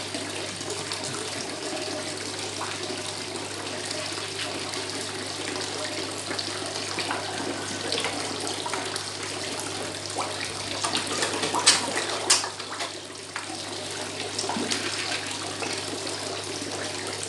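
Water pouring steadily from pond outlets into a koi pond, with a few sharper splashes about two-thirds of the way through.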